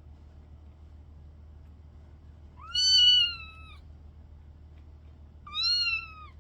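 A young kitten meowing twice: two high-pitched calls that rise then fall in pitch, the first about a second long and louder, the second shorter near the end.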